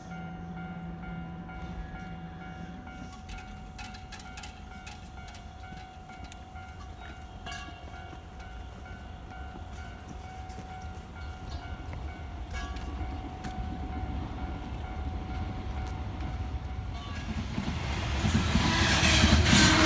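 Train on the Tokaido Line approaching, its low rumble building until loud wheel-on-rail noise comes in sharply near the end as it reaches the station. Behind it a steady high ringing tone runs most of the time and cuts off a few seconds before the end.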